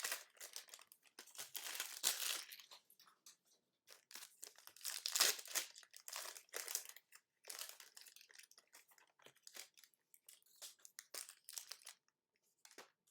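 Trading card pack wrappers crinkling and tearing open, in several rustling bursts that thin out and stop near the end.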